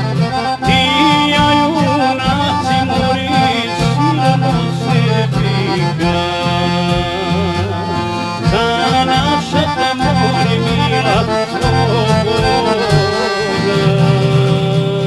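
Traditional folk song music led by accordion, with ornamented melody lines over a steady bass accompaniment.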